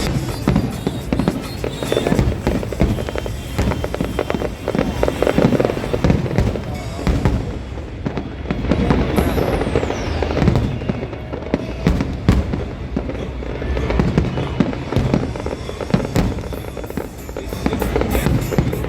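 Fireworks display going off continuously: rapid overlapping bangs and crackling, with a falling whistle about nine seconds in.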